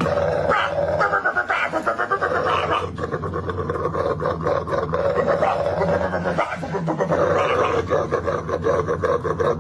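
A dog growling and grunting in a fast, rhythmic run that sounds like beatboxing, with only a short break about two-thirds of the way through.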